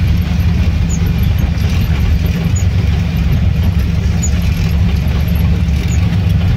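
Inside the cabin of an air-cooled VW Kombi driving in heavy rain: the flat-four engine's steady low drone under the hiss of rain and wet road. A short high squeak from the windscreen wipers repeats about every second and a half.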